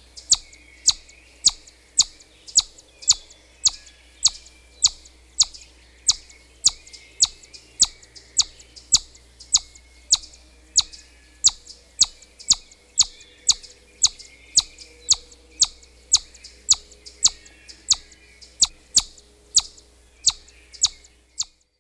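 Chipmunk repeating its sharp, high "chip" call about twice a second, the steady chipping it gives as an alarm. The calls stop abruptly near the end.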